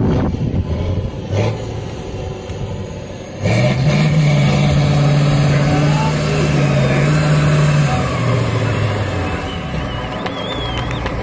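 Tatra off-road truck's air-cooled diesel engine working under load through a mud hollow. It revs up sharply about three and a half seconds in, holds a high steady drone for several seconds, then drops back near the end.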